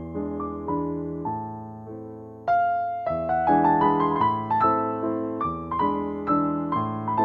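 Instrumental keyboard music: a melody of struck notes that each fade away, over changing bass notes. A louder phrase comes in about two and a half seconds in.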